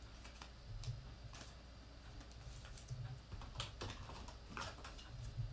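Light, irregular clicks and scrapes of a trading card and clear plastic sleeve and toploader being handled, the card being slid into its protective holder.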